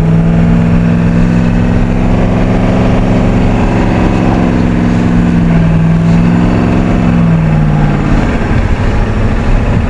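1990 Ford F250's 7.3L IDI V8 diesel held at steady, raised revs under throttle as the truck struggles for grip in snow in two-wheel drive. The revs drop off about eight seconds in.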